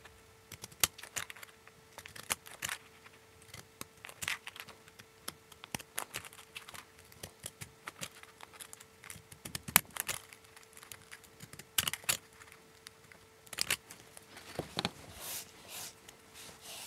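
Pinking shears cutting through the edge of folded origami paper in many short snips, each close of the metal zigzag blades giving a sharp click at an irregular pace.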